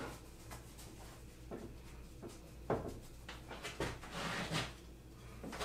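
Scattered light knocks and taps as small pieces of wood trim are handled on a workbench, with a short puff of breath about four seconds in.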